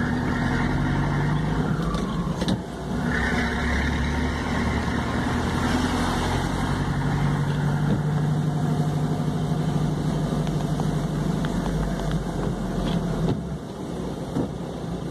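Vehicle engine running while driving, heard from inside the cabin, its pitch shifting with speed and gear changes, with a brief drop about two and a half seconds in and again near the end.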